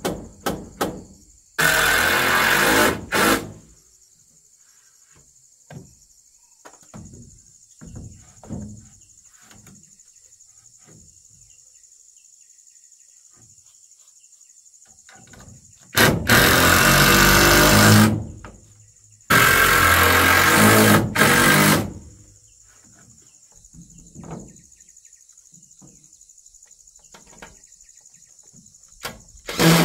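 Cordless drill running in bursts of a second or two as it drives screws into wooden wall boards, three bursts in all, with scattered light knocks of boards and tools between them. Insects buzz steadily throughout.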